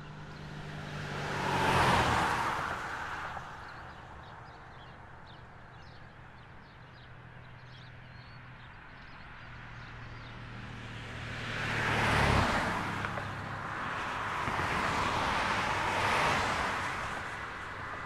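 Road traffic: cars passing one at a time, each swelling and fading as it goes by. One passes about two seconds in, and two more follow close together in the second half.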